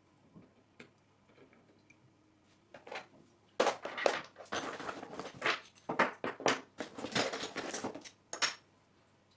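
Hands-on setup noises from arranging materials in a mini paludarium: a few faint clicks at first, then from about three and a half seconds in, some five seconds of dense crunching, rustling and clattering.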